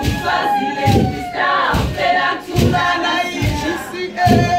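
Group of women singing together in chorus, a traditional siSwati song, with a low thud on the beat about every second.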